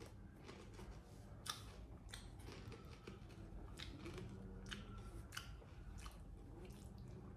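Potato chips being chewed: faint, sharp crunches at irregular intervals, roughly one every half second to a second.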